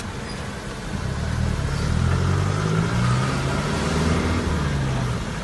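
Vehicle engine heard from inside the cab, picking up revs as it accelerates about a second in, then running at steady revs with the pitch easing back near the end.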